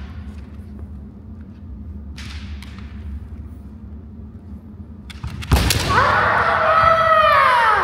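Kendo sparring: a few seconds of low background, then about five and a half seconds in the sharp crack of a shinai strike, followed by a long kiai shout of about two seconds that drops in pitch at its end.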